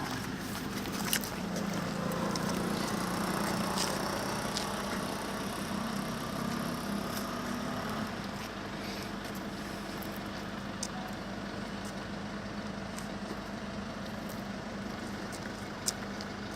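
A motor vehicle engine running steadily with a low hum, slightly louder for the first half, with a few sharp clicks.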